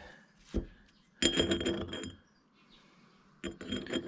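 Steel synchro hub parts from a Classic Mini gearbox clinking and ringing against each other as they are handled: a soft knock, then a quick run of clinks about a second in, and another run near the end.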